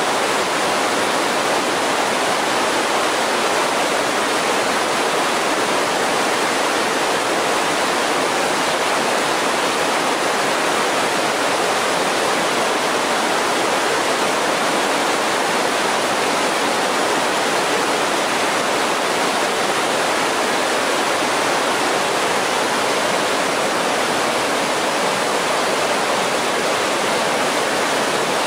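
Mountain creek rushing over boulders in whitewater rapids: a steady, unbroken rush of water.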